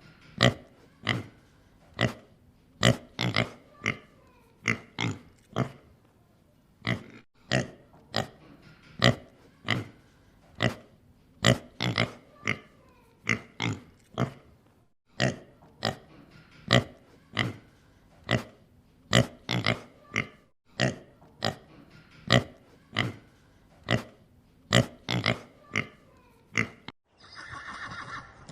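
Pig grunting in a long series of short, sharp grunts, about one or two a second.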